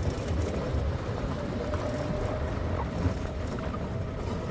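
Vehicle driving, its engine a steady low rumble, with a faint steady whine that sets in about a second and a half in.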